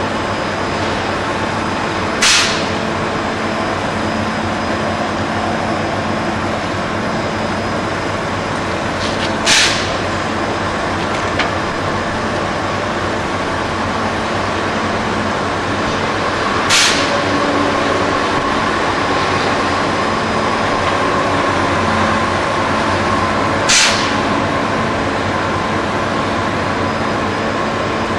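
Steady heavy machinery noise from a container crane and the split headblock hanging from its hoist ropes, with four short hisses about seven seconds apart.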